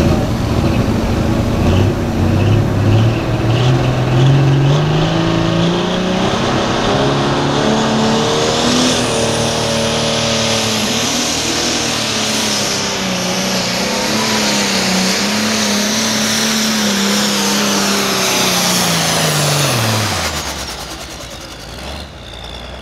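Turbocharged diesel pulling tractor making a pull. The engine climbs over the first few seconds and holds at high revs with small dips under load, while a high turbo whine builds. Near the end the engine and whine drop away quickly as it is throttled back.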